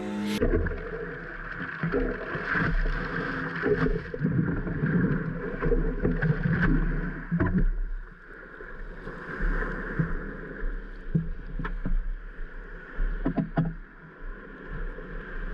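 Stand-up paddleboarder breathing hard while paddling, with water splashing, a few sharp knocks of the paddle, and wind rumbling on the microphone.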